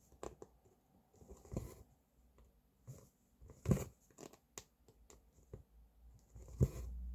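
Cross-stitch handling: thread drawn through fabric in short rasping strokes, with small clicks and taps in between.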